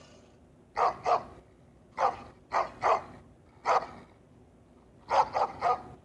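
A dog barking in short, sharp barks in quick groups: two, then three, then one, then three.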